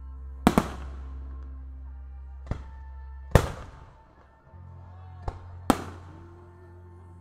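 Aerial firework shells bursting in a professional display: a close double bang about half a second in, then single loud bangs a little after three seconds and near six seconds, each trailing off in echo, with fainter reports in between. Sustained music chords run underneath.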